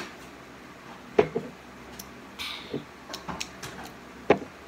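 Sipping milk through a straw from a small glass bottle, with a brief slurp about two and a half seconds in. A handful of sharp clicks and taps come with it, the loudest about a second in and near the end.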